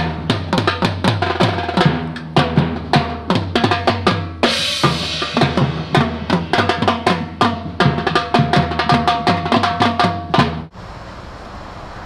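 Live percussion ensemble playing drums and other struck instruments in a fast, dense run of hits, some of them ringing with a pitch, with a brief crash about four and a half seconds in. The playing cuts off abruptly near the end, leaving a steady outdoor hiss.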